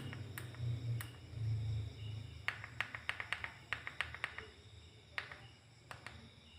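A string of sharp clicks and taps of small hard objects, coming quickly about halfway through, over a low hum that fades out in the first two seconds.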